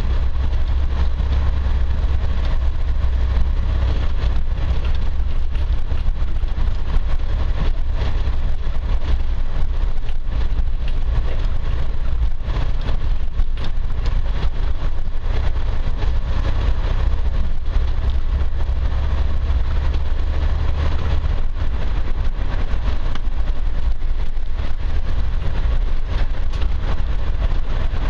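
Land Rover 4x4 driving slowly over a rough gravel track, heard from inside the cab: a steady low engine drone mixed with tyre and suspension rumble. The low drone eases slightly about two-thirds of the way through.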